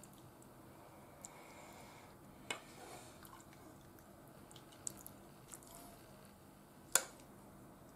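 Soup being spooned from a saucepan into a porcelain bowl: faint soft slops of liquid and a few light clinks of a metal spoon against pot and bowl, the sharpest clink about seven seconds in.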